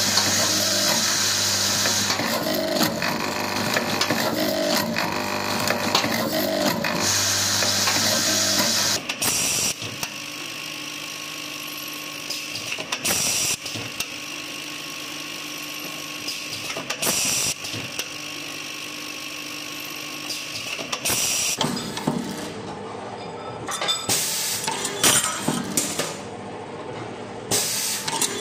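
Automatic drilling and machining spindles cutting small metal parts, loud cutting cycles repeating every couple of seconds. About nine seconds in it drops to a quieter steady machine whir with held tones and occasional clicks.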